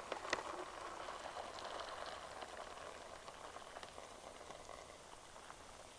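Boiling water poured from a camping pot into a trekking meal pouch: a faint, steady liquid pour that slowly fades away.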